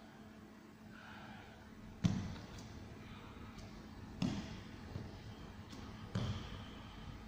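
Three dull thuds on a training mat, about two seconds apart with the first the loudest, as hands gripping training knives and the body come down onto the floor, with a few lighter taps between them.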